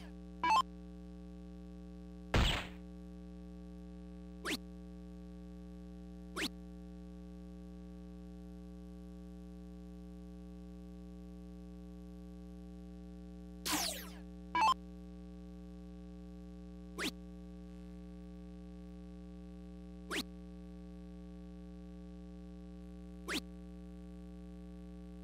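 Soft-tip darts striking an Arachnid electronic dartboard: single short sharp hits a few seconds apart, the last three about three seconds apart, over a steady electronic hum. Near the middle a falling, sweeping electronic tone from the machine marks the change of player, and a louder thump comes near the start.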